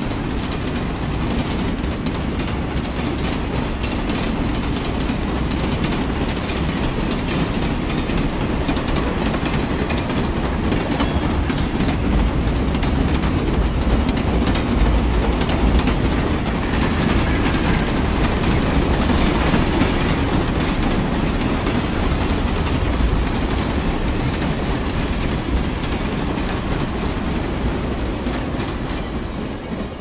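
Train running steadily along the rails: a deep rumble with the clickety-clack of wheels over rail joints, swelling slightly in the middle.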